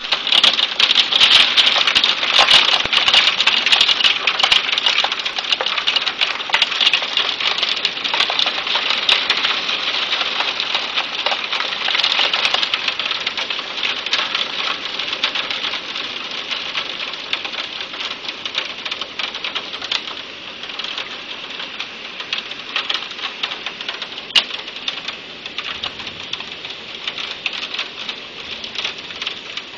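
Hail and heavy rain pelting down: a dense, rapid clatter of hailstones over the hiss of rain, loudest in the first dozen seconds and gradually easing after that.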